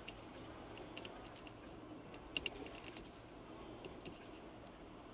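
Faint, scattered clicks of a kitchen knife tapping a cutting board while filleting small halfbeak, with a sharper double click about two and a half seconds in.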